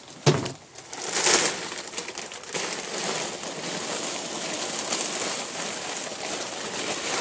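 Newspaper cage lining rustling and crinkling close to the microphone, with a single knock just after the start.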